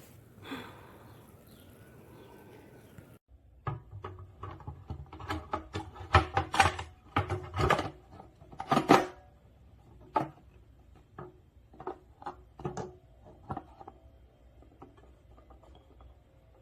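Irregular knocks and clicks of hard objects being handled, starting about three and a half seconds in, loudest in the middle and thinning to faint ticks near the end.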